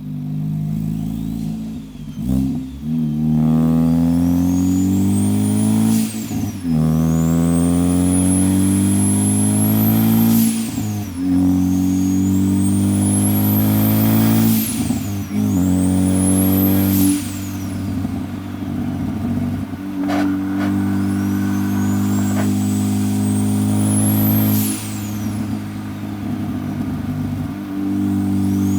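Turbocharged Ford Focus ST accelerating in repeated pulls: the engine note rises through each pull while a high turbo whistle climbs with it, then drops away sharply at each lift or shift, about five times. The owner says the car is barely making boost because of a boost leak.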